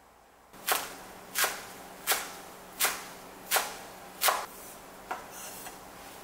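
Kitchen knife chopping red shiso leaves on a wooden cutting board: six firm chops about 0.7 s apart, then a few lighter taps.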